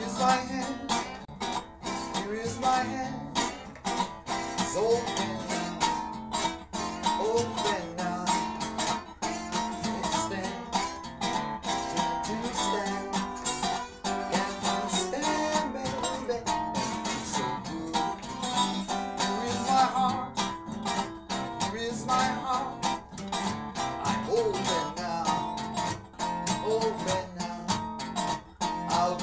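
Blues band playing, with guitar to the fore.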